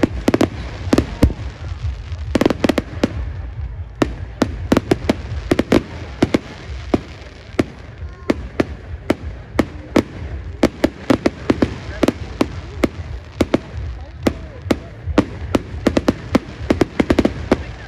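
Fireworks display: aerial shells bursting and crackling in quick succession, dozens of sharp bangs, several a second.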